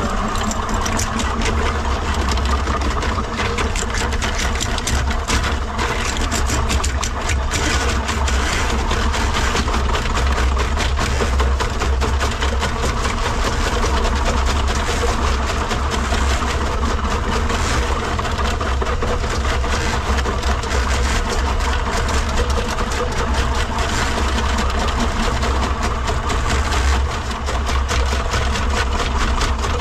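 Electric drain-cleaning machine running steadily, its spinning cable fed into an open cast iron drain pipe to clear a clogged line.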